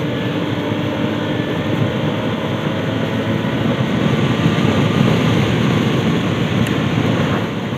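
Steady rush of wind and road noise from riding a motorcycle along a road, with the engine running underneath.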